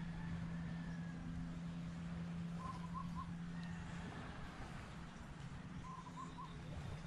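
A bird calling twice, a short three-note call each time, over a steady low hum that fades out about halfway through.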